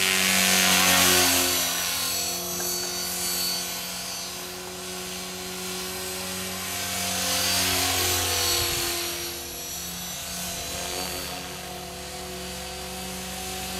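Align T-Rex 500 DFC electric RC helicopter flying overhead: a steady whine from its motor and rotor blades, swelling louder as it passes close about a second in and again around eight seconds in.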